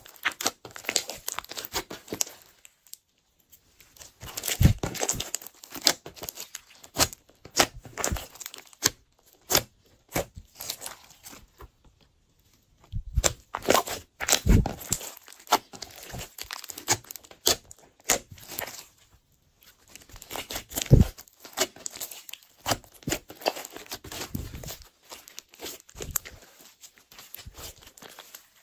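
Hands stretching, pulling apart and squeezing glossy slime: sticky clicking, crackling and popping that comes in irregular spells with brief pauses.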